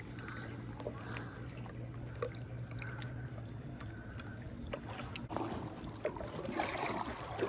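Kayak paddle working the water: quiet drips and trickling, then a louder paddle-stroke swish from about five seconds in, over a steady low hum.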